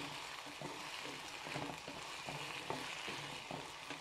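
Diced potatoes sizzling in hot oil in an earthenware cazuela, stirred with a wooden spoon that gives short scrapes and knocks against the pot over the steady hiss.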